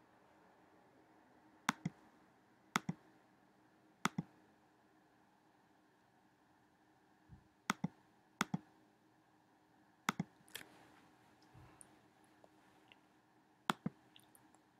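Clicks from operating a computer's pointer: about eight sharp clicks at irregular intervals, most heard as quick pairs, over a faint steady hum.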